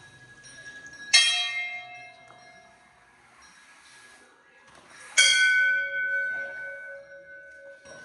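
Hanging temple bells struck twice, about four seconds apart; each strike rings out with several clear tones that fade over a couple of seconds.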